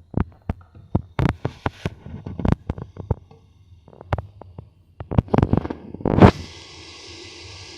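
Kitchen clatter: a string of sharp knocks and clicks from cookware and utensils, then a sudden loud rush about six seconds in that settles into a steady hiss.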